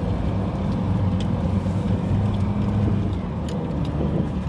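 Car engine and road noise heard from inside the cabin while driving, a steady low drone that eases off about three seconds in.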